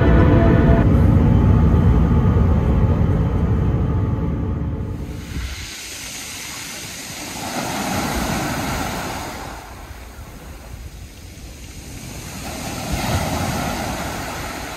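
A loud low rumble, jet airliner cabin noise, for about the first five seconds, then waves breaking and washing over a pebble beach in two surges about five seconds apart.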